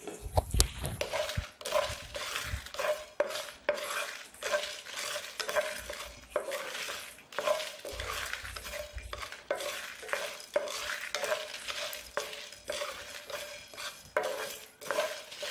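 Whole spices (black peppercorns, coriander seeds, fennel, cumin, dried red chillies) being stirred with a wooden spatula in a dry non-stick pan, scraping and rattling in quick repeated strokes as they are dry-roasted on low heat.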